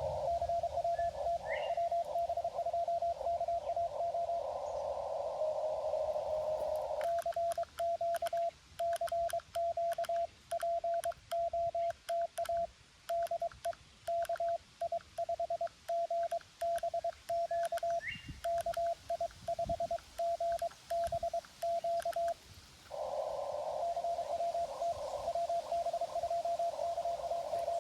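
Morse code from a Xiegu G90 transceiver heard through a narrow CW filter: a station's tone sits in a band of hiss. About seven seconds in the hiss drops out, and the radio's own sidetone sends a keyed string of dits and dahs with small clicks for about fifteen seconds. Near the end the hiss returns with another station's tone on the same frequency, which he describes as somebody on top of him.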